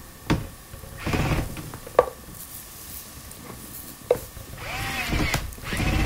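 Cordless drill/driver driving Phillips-head screws: two short runs of the motor, about a second in and near the end, each rising then falling in pitch, with a few sharp clicks between them.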